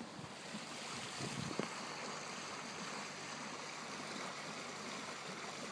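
Water rushing steadily along a moving boat's hull as its bow wave breaks.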